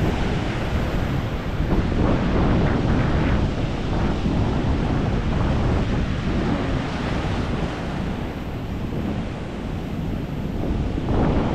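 Ocean surf washing and breaking on the beach, swelling and easing as the waves come in, with wind buffeting the microphone.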